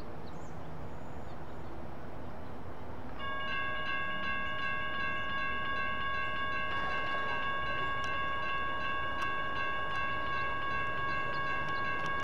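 Railroad crossing warning bells start ringing about three seconds in and keep a steady, continuous ring of several bells over low outdoor background noise. They are the crossing signals activating for an approaching light rail train.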